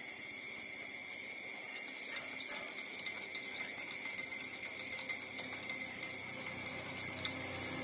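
Newborn puppies suckling at their mother, with faint irregular clicks and smacks that start about two seconds in, over a steady high-pitched whine.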